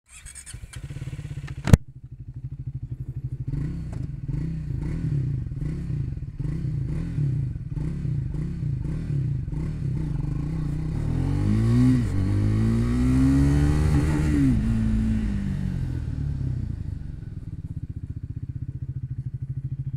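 Triumph Speed 400's single-cylinder engine. After a sharp click, it is revved in short repeated blips, then a hard launch at about eleven seconds sends the revs climbing, dropping and climbing again through two quick upshifts as the bike lifts into a wheelie. It eases back to a low run near the end.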